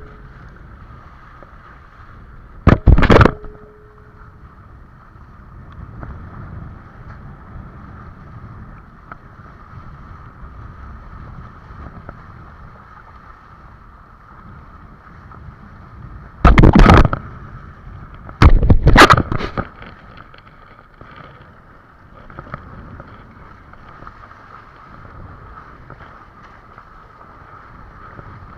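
Water rushing and wind noise on the camera microphone while windsurfing, broken by three short, very loud bursts of noise: one about three seconds in and two close together a little past halfway.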